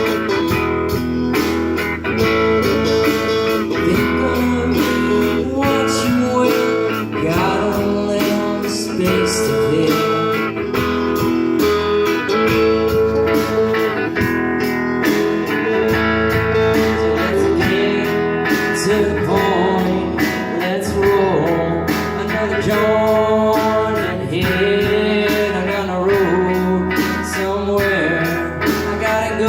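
A band playing a guitar-led blues-rock instrumental passage, with sustained and sliding guitar notes.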